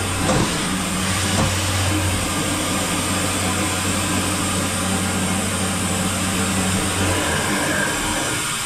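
Kia H63 horizontal machining centre's indexing pallet table turning, a steady machine hum and whir with a low drone that stops shortly before the end.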